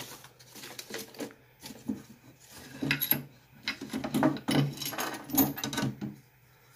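Small metal hand tools from a lock-pick hook kit clinking and rattling as they are handled and sorted through, in a run of irregular light clicks.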